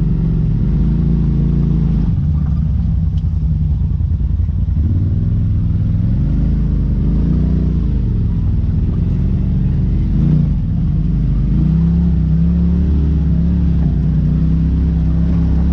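Polaris RZR side-by-side's engine running at low speed while crawling over rocks, its pitch rising and falling with the throttle. A brief knock about ten seconds in.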